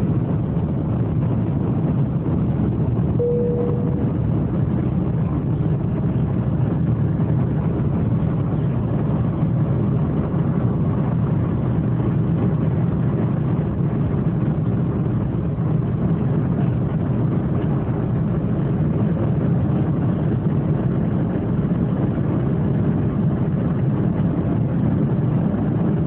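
Steady low rumble of an airliner's engines and airflow heard from inside the cabin during takeoff, with a single brief tone about three seconds in.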